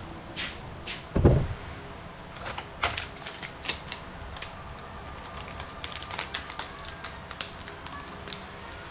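Scattered light clicks and taps of small plastic car badges being handled, with one low thump about a second in.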